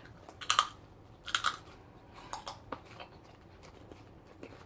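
Crisp cheese-flavoured snack being bitten and chewed: two loud crunches in the first second and a half, a few softer crunches a second later, then faint chewing clicks.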